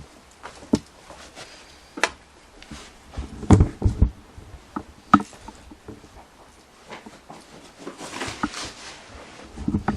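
Scattered knocks, clicks and thumps in a small room, with a cluster of heavier low thumps about three and a half seconds in and a short rustle near the end.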